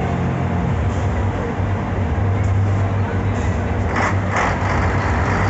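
Semi-truck tractor unit's diesel engine running steadily with a low drone as the truck is driven in tight circles, with two short bursts of hiss about four seconds in.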